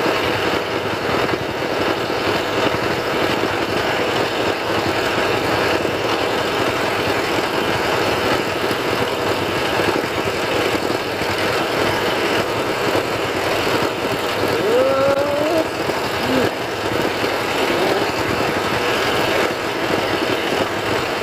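A motor running steadily, a constant hum under a dense rushing noise. A brief rising whistle-like sound comes about fifteen seconds in.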